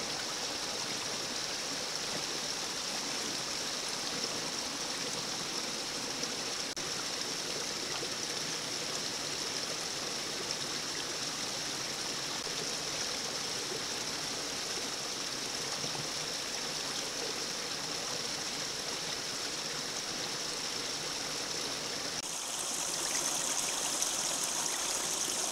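Water running steadily through a breached beaver dam, an even rushing hiss with no breaks. About 22 seconds in it turns a little louder and brighter.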